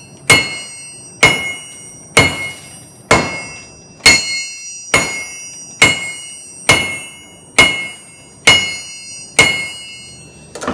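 Blacksmith's hammer beating hot metal on an anvil: eleven steady, evenly spaced blows, a little over one a second, each with a bright metallic ring that fades before the next strike.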